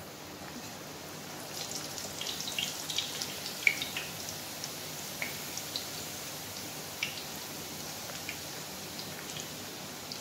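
Puri dough frying in hot oil in a pan: a steady sizzle with sharp crackles and pops that start about a second and a half in, come thickest over the next couple of seconds with one loud pop, then thin out.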